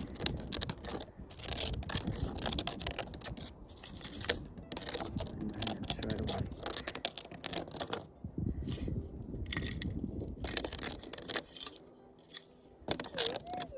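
Gritty dirt being scraped and dug in rapid crunching strokes, with a brief pause about two-thirds of the way through. Near the end a metal detector gives a short warbling target tone.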